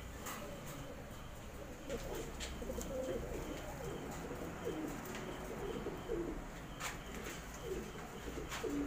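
Domestic pigeons cooing over and over in low, wavering phrases, starting about two seconds in, with a few short clicks.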